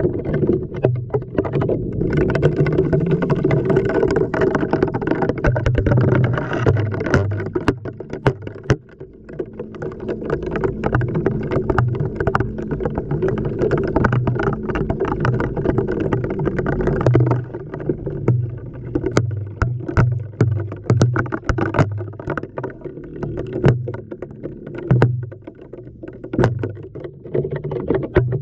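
Washing machine heard from inside the drum during a wash: water sloshing and laundry tumbling, with many knocks of the camera against the drum over a steady motor hum.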